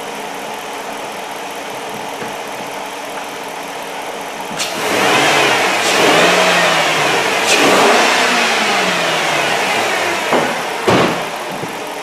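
Jeep Commander's 5.7 Hemi V8 idling, then revved up about halfway through and settling back to idle, running smoothly with no misfire on cylinder 7 at this point. Two short knocks near the end as the driver's door is shut.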